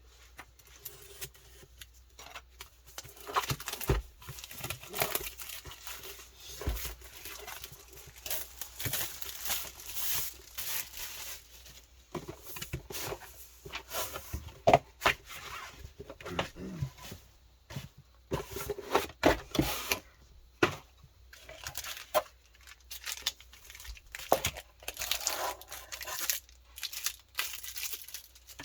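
Trading card packaging being torn open and crinkled by hand: irregular rips and crackles of plastic and foil wrappers.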